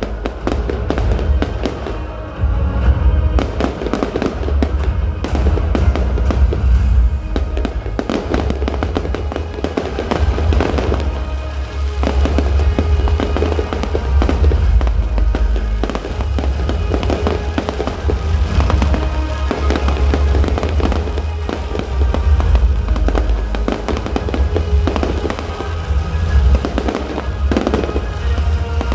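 Fireworks display: many shells bursting and crackling in quick succession over loud show music with a heavy bass.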